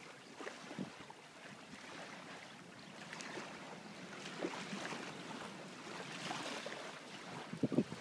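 Snowstorm wind rushing over the microphone in an even hiss, broken by scattered brief soft thumps that come thicker near the end.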